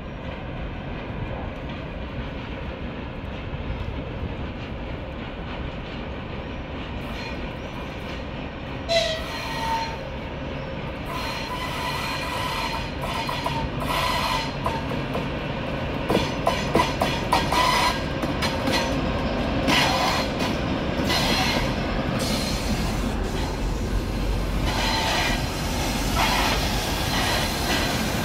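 Diesel locomotives running through a rail yard with a steady engine rumble and wheel-on-rail noise. Repeated short, high-pitched wheel squeals come from about 9 to 22 seconds in. Near the end a deeper rumble builds as a twin-section 2TE25KM diesel locomotive passes close by.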